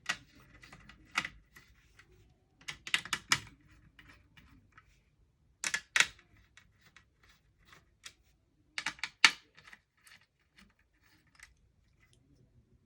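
Screwdriver driving the heatsink screws down on a Dell Latitude D630 laptop: small sharp clicks and taps of tool and screws on metal, coming in clusters with the loudest few quick ones about three, six and nine seconds in, and faint ticking between.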